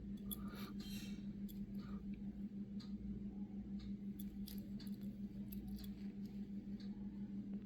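Scattered light clicks and taps of a tiny diecast toy car being handled, with a brief rustle about a second in, over a steady low hum.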